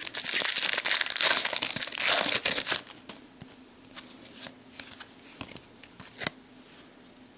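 Crinkling and tearing of a trading-card pack wrapper for about three seconds, then a few light clicks and taps as the cards are handled.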